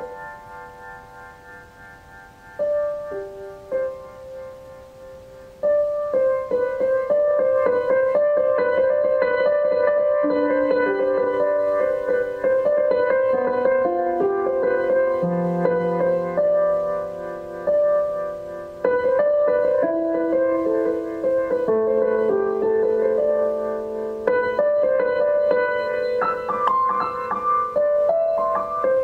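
Slow, calm keyboard music in a piano tone, with long held notes and chords. It is soft at first and grows fuller and louder about six seconds in.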